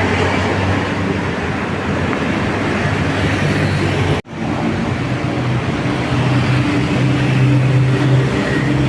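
Large bus's diesel engine running as it passes, a steady loud hum. The sound breaks off abruptly for an instant about four seconds in, then the engine hum carries on.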